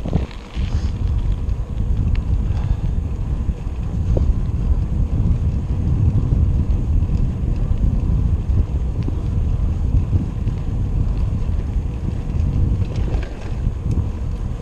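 Wind buffeting the microphone: a loud, uneven low rumble, with a few faint ticks on top.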